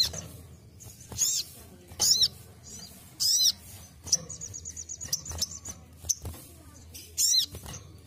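Sunbird (sogon) calling: short, sharp high chirps that each sweep quickly down and up in pitch, repeated several times, with a fast trill about four seconds in, over light flutters of its wings.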